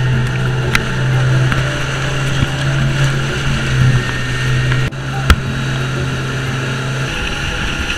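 Speedboat running flat out on a Suzuki 140 hp outboard: a steady engine drone under the rush and hiss of water spraying along the hull. Two sharp knocks cut through, about a second in and a little past five seconds.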